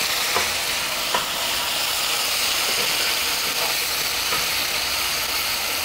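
Onion-and-spice masala sizzling steadily in hot oil in a nonstick frying pan, just splashed with a little hot water, while a wooden spatula stirs through it with a few light taps on the pan.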